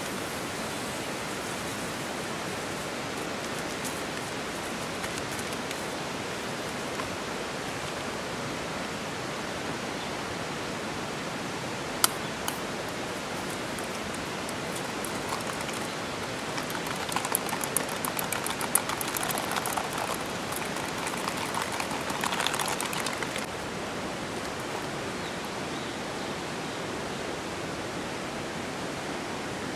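Steady, even hiss of heavy rain. About twelve seconds in there is one sharp click, and from about seventeen to twenty-three seconds a louder stretch of crackling and clattering sits over the rain.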